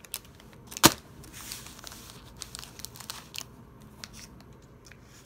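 Plastic packaging crinkling and rustling as it is handled, with one sharp snap about a second in, followed by scattered small clicks that thin out toward the end.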